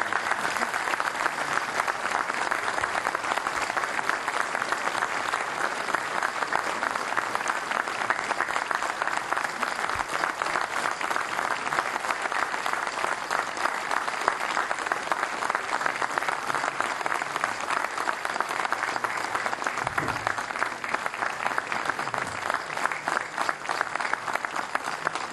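A large crowd applauding, many hands clapping in a steady, sustained round.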